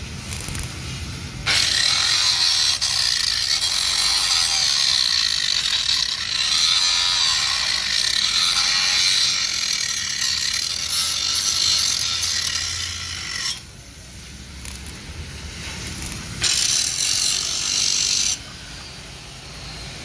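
Stick (shielded metal arc) welding on a steel truck chassis rail: the arc crackles and sizzles in one long run of about twelve seconds starting a second and a half in, breaks off, then a second short run of about two seconds near the end.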